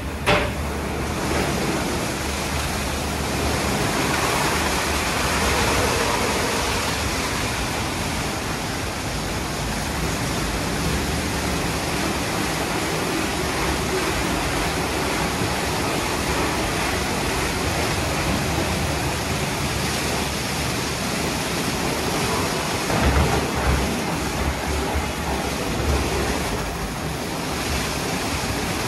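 WashTec SoftCare Bravo rollover car wash running, a steady rush of spraying water. There is a sharp click right at the start and a few low thumps a little over twenty seconds in.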